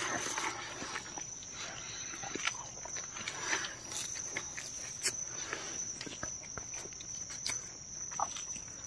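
Insects keep up a steady, high-pitched drone. Over it come scattered small clicks and soft rustles of hands picking rice off a banana leaf, as people eat.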